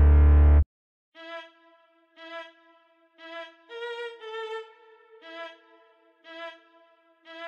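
Music: a loud, dense, heavy section cuts off abruptly under a second in. After a short silence a melody of separate held notes plays, about one note a second, with a quicker run of notes in the middle.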